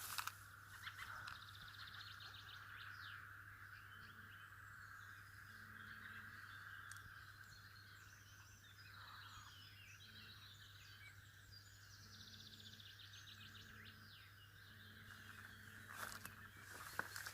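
Faint birdsong, many short chirps from small songbirds, over the steady rush of a stream. A few light clicks and knocks come near the end.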